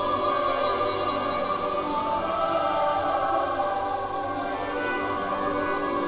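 Background music of long, slowly held chords.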